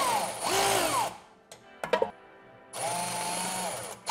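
Cordless power tool spinning a socket on the sway bar bracket bolts, running in short bursts of motor whine whose pitch sags under load and recovers. There is a brief clatter of clicks midway and a steadier run after it.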